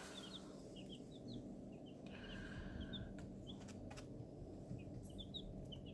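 Baby chicks peeping softly: scattered short, falling chirps from several birds, with a few sharp clicks in between.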